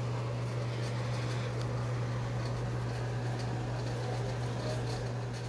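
Steady low hum of room ventilation air, with a faint even hiss over it.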